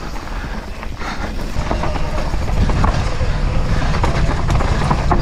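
Downhill mountain bike rattling over loose rock and dry dirt at speed: tyres crunching and the bike clattering, with a constant low rush of wind on the action camera's microphone. It grows louder over the first couple of seconds.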